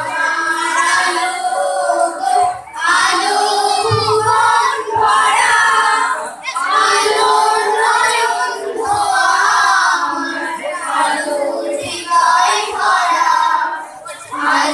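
Schoolgirls singing a song together into microphones, in sung phrases of a second or so with short breaks between them.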